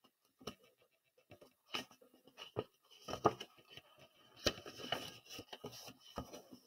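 Paper handling on a picture book: a few soft taps and rustles as the hand moves over the page, then the rustle of the page being turned about four and a half seconds in.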